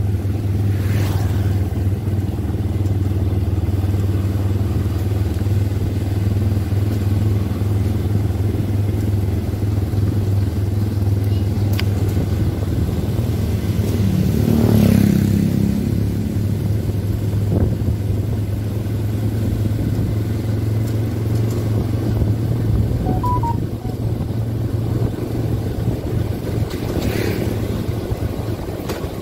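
Quad bike (ATV) engines running at riding speed, a steady low drone that swells briefly about halfway through.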